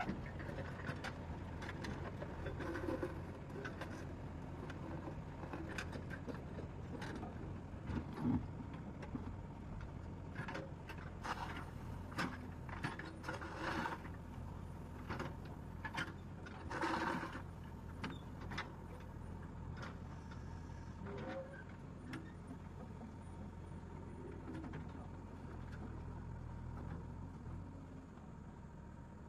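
JCB 3DX Eco backhoe loader's diesel engine running steadily while its backhoe bucket scrapes and drags through crushed stone gravel, the stones rattling and scraping in several louder bursts through the middle of the stretch.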